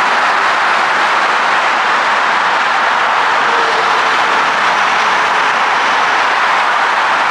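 Steady, loud traffic noise from a busy multi-lane highway: tyre and engine noise of many cars and trucks blending into one even wash, with no single vehicle standing out.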